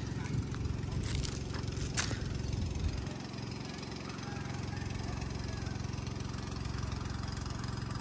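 Tracked hydraulic excavator's diesel engine running steadily, with a few sharp knocks in the first three seconds as the bucket works the soil.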